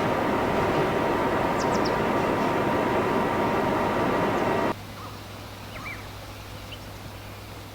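Steady rumbling noise of an R142A subway train with a faint steady hum, which cuts off abruptly about five seconds in. A much quieter background with a few short high chirps like small birds follows.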